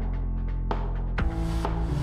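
Background music with a steady beat of struck accents about twice a second over sustained notes and a low bass; the bass moves to a new note a little past the middle.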